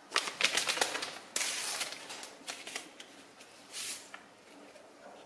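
A small paper sachet of vanilla sugar crinkling and rustling as it is handled and torn open, with a short ripping sound about a second in, then a soft hiss as the powder is poured out into a stainless steel bowl.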